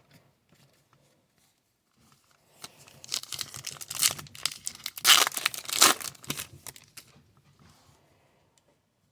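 A trading card pack wrapper being torn open and crinkled for about four seconds, starting after a short quiet spell.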